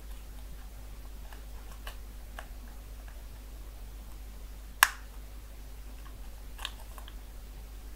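Faint clicks and scrapes of a thin pry tool working along the seam of a TP-Link XZ000-G3 GPON ONT's plastic case. About five seconds in comes one sharp snap as a plastic clip pops loose, and a few smaller clicks follow near the end.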